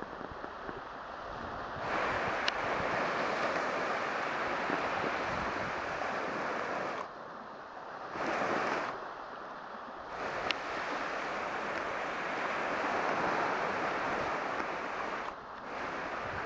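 Baltic Sea surf washing onto the shore, a steady rushing hiss that rises and falls in level a few times.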